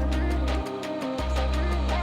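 Background music with a heavy, sustained bass line.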